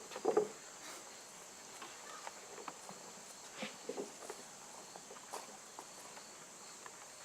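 Faint room noise: scattered small knocks and shuffles, like footsteps and people moving, over a steady hiss. There is a brief louder knock near the start and a few more about four seconds in.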